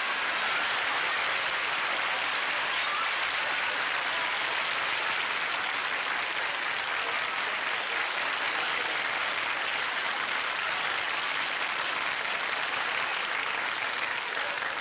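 Studio audience applauding steadily: a long ovation greeting an entrance.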